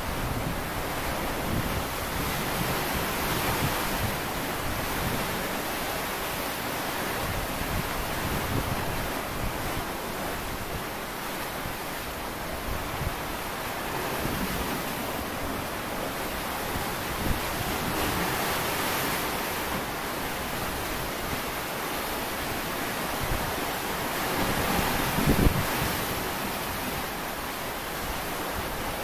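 Sea waves washing onto the shore: a steady rush of surf that swells and eases every several seconds. Wind buffets the microphone in low thumps, with a stronger gust near the end.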